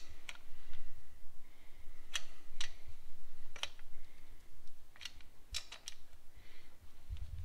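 Scattered sharp metallic clicks and clinks, about eight at irregular spacing, from a socket wrench being fitted to and turned on the cylinder-head nuts of a BMW R100 boxer engine.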